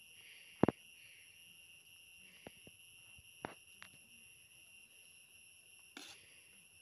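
A steel ladle clinking a few times against the metal cooking pot as the noodles are stirred, the loudest clink about half a second in, over the steady high chirring of crickets.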